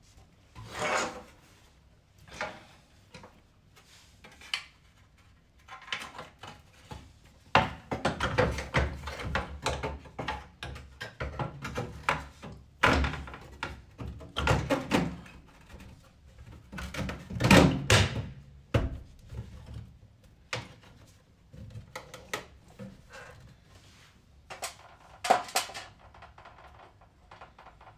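Irregular thunks, knocks and scraping as a washing machine's panels and parts are handled and fitted back into place, with the loudest knocks about two thirds of the way in.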